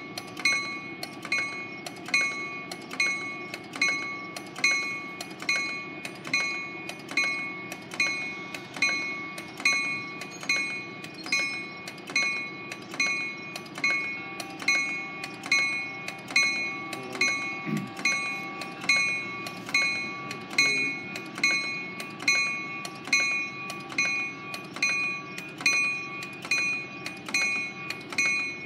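A train's bell ringing steadily, with an even stroke a little more than once a second, as the rail car pulls slowly through the station. A low diesel rumble runs underneath.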